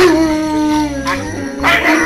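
Huskies howling: a long howl that starts abruptly and holds a steady, slightly falling pitch for about a second, then a second howl that rises and wavers near the end.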